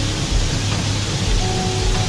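Soft ambient meditation music with long held notes, a new chord coming in about a second and a half in, over the steady rushing noise of a waterfall.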